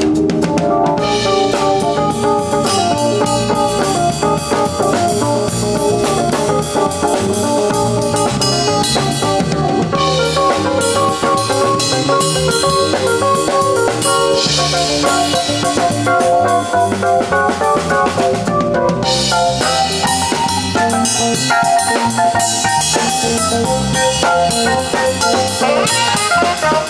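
A small live band playing, with a drum kit's snare and bass drum prominent over electronic keyboard and guitar.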